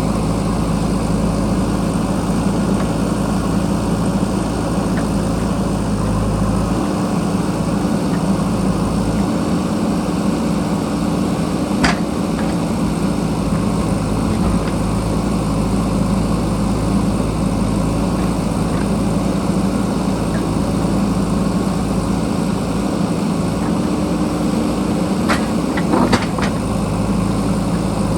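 JCB backhoe loader's diesel engine running steadily while working. A steady higher tone joins in for several seconds about a quarter of the way in and again near the end, and there is a sharp knock about twelve seconds in and two more near the end.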